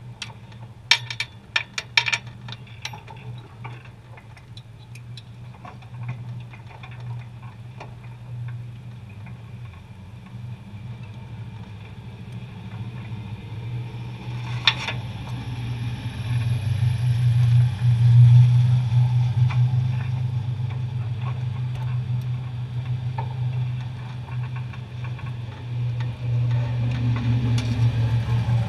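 Race car engine idling, a steady low drone that swells louder about halfway through. A few sharp clicks sound near the start, and a single knock comes just before the swell.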